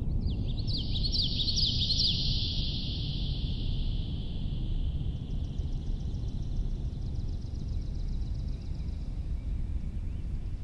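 Dark ambient drone music: a steady low noisy rumble, with a flurry of quick high chirps in the first few seconds that fades away, then a faint, fast high ticking.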